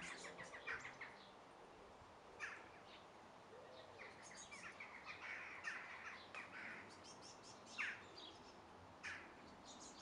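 Faint outdoor birdsong: several birds chirping and calling in short scattered bursts over a quiet background hiss.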